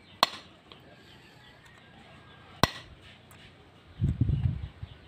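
Two sharp metallic taps about two and a half seconds apart: a punch being struck against a gear to knock out a broken tooth fragment. A short low rumble of handling noise follows near the end.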